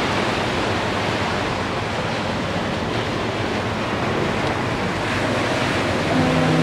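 Ocean surf breaking and washing up a sandy beach in a steady rush. About six seconds in, a foghorn starts sounding a low, steady note.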